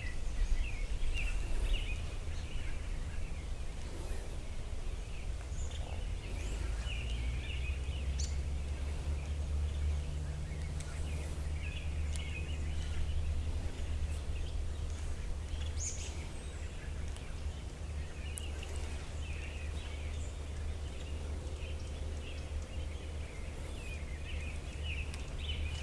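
Small birds chirping here and there over a steady low rumble.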